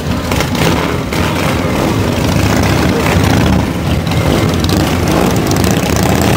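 Cruiser and chopper motorcycle engines running loudly as the bikes pull away one after another.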